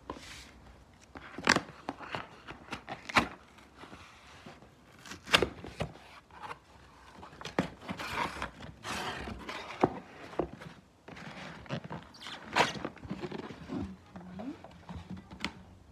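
A parcel being opened and unpacked by hand: scattered knocks and clicks of the box and its contents, with stretches of packaging rustle in between.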